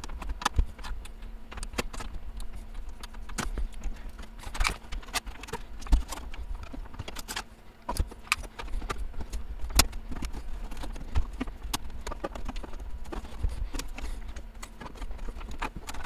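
Irregular clicks, taps and knocks of hands working inside the open chassis of a Compaq Portable computer, taking out its floppy drives.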